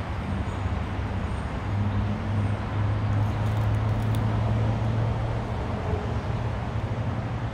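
Steady rumble of road traffic with a low hum, swelling a little about two seconds in and easing again near the end.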